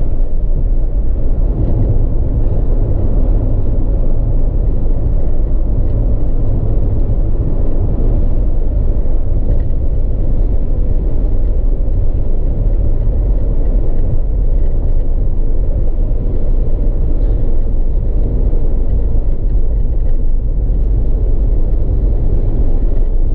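Steady engine and road rumble inside a moving car's cabin, holding an even speed with no revving.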